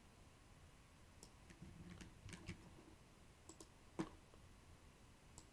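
Faint, irregular clicks of computer mouse and keyboard use, about eight in all, the loudest about four seconds in, over near-silent room tone.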